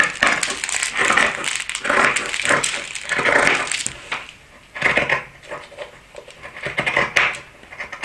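Dressmaking shears cutting through fabric along a pattern line: a run of crisp snips at an uneven pace of one or two a second, with a short lull partway through.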